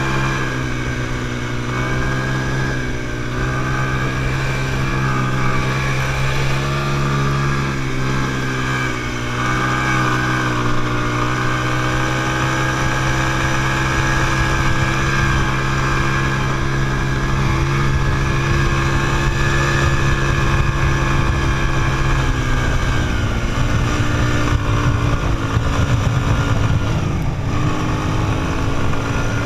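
Quad bike's engine running steadily under way across sand, heard from the rider's seat, its pitch dipping briefly a few times. About three-quarters of the way through the engine note drops and a rough low rumble grows underneath it.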